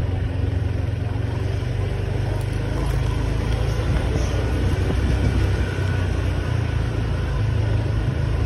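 Honda motor scooter running at low speed, a steady low engine hum under a haze of road and traffic noise.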